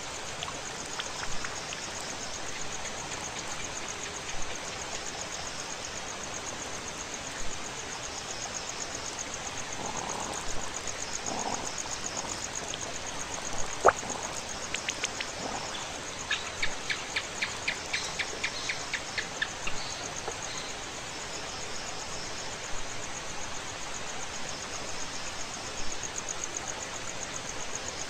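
Insects, crickets by the sound of it, chirring steadily at a high pitch over a steady background hiss. About halfway through, a quick run of roughly a dozen sharp ticks lasts a few seconds, with a few scattered short chirps around it.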